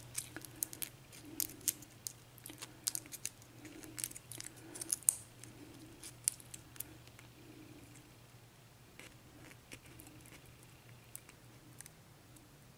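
Light metallic clicks and taps from handling a lock cylinder and small tools, frequent through the first half and then sparse, over a faint steady hum.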